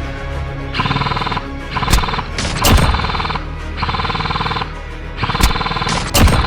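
Background music with a regular, gritty pulse about every second and a half, with four sharp cracks on top of it.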